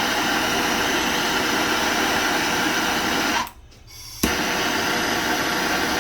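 Propane soldering torch flame hissing steadily while heating fluxed copper pipe joints for soldering. It cuts out about three and a half seconds in, then comes back with a sharp click.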